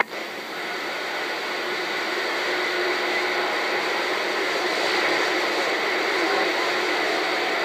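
A steady rushing hiss with no clear rhythm or pitch, which builds slightly over the first couple of seconds and then holds level.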